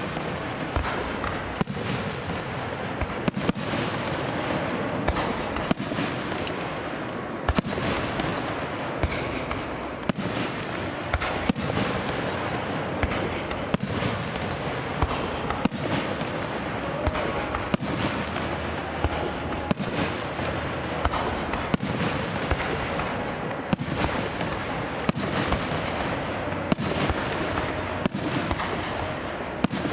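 Aerial fireworks bursting in quick, irregular succession: sharp bangs about once or twice a second over a continuous dense din.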